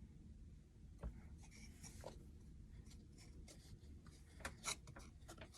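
Near silence with faint hand-handling noise: light rubbing or scratching and a few small clicks, about a second in, two seconds in and twice near the end.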